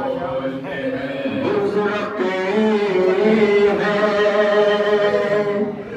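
A male voice chanting a Muharram elegy, unaccompanied, in long held, melismatic notes.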